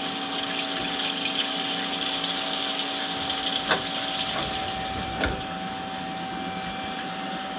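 Cutting-oil coolant from a Star SR32J Swiss-type CNC lathe pumping and splashing over the work, a steady hissing gush over the machine's hum. The gush eases after about five seconds, with a couple of sharp knocks.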